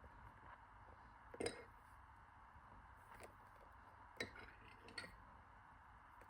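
Low room hum broken by four short, light clinks of dishware being handled, the first about a second and a half in being the loudest.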